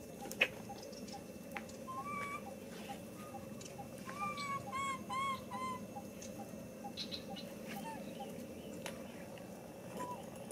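Baby long-tailed macaque giving short, high squeaky coo calls: a couple about two seconds in, then a quick run of four or five around the middle, and one more near the end. A sharp click sounds just under half a second in.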